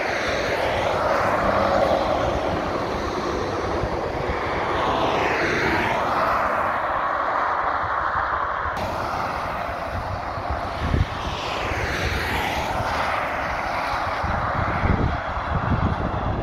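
Motorway traffic going past at speed: lorries and cars with a steady rush of tyre and engine noise that swells and falls away as each vehicle passes close by. Two short low thumps in the second half.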